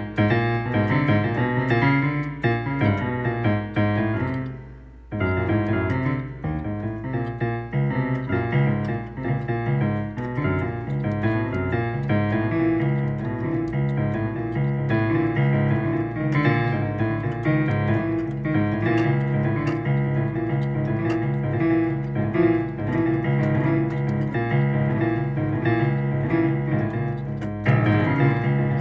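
Digital keyboard with a piano voice playing an improvised passage of chords over low bass notes. It thins out and fades briefly about four seconds in, comes straight back, and through the second half one middle note repeats evenly under the chords, with a louder chord entry near the end.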